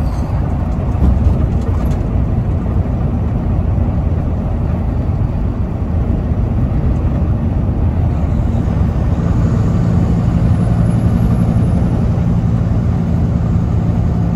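Semi truck cruising at highway speed, heard from inside the cab: a steady drone of diesel engine and tyre noise on the road. About nine seconds in, a low engine hum comes up more strongly and holds steady.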